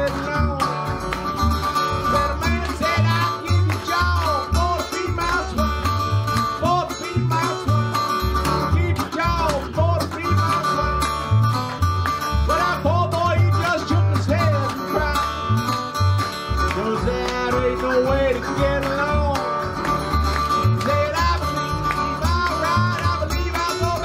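Country blues played on harmonica, resonator guitar in open D tuning and washtub bass: the harmonica carries bending lead lines over the picked guitar and a rhythmic low bass.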